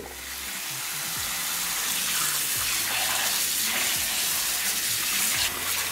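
Cold tap water running into a glass bowl of cut sweet potato sticks as hands stir them to rinse off the starch. The water sound comes on and builds over the first couple of seconds, then holds steady.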